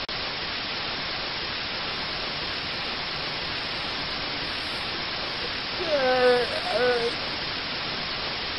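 Steady hiss of recording noise, with a brief two-part vocal sound from a person about six seconds in.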